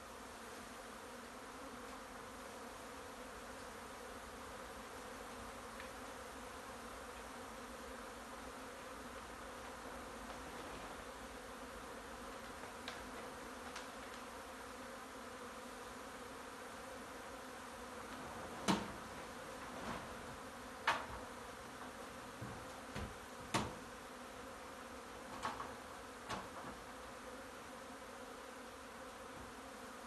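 A honey bee swarm buzzing steadily, the dense hum of many bees flying around their cluster. A little past halfway there is a run of about half a dozen sharp knocks.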